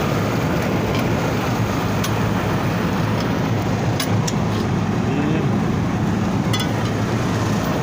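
Steady running machinery with a constant low hum, and a few faint clicks or taps scattered through it.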